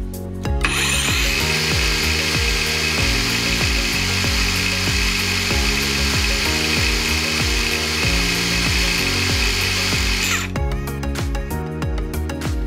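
Akaido AKCS125BL 5-inch cordless circular saw's brushless motor and blade running free with no load at about 5,800 rpm: a steady high-pitched whine that starts about half a second in and cuts off about ten and a half seconds in. Background music plays throughout.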